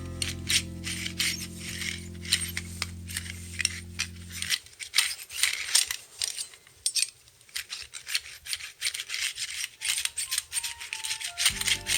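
Quick, repeated rubbing strokes of a tool on thin sheet metal, running throughout. Background music plays under it for the first third and again near the end.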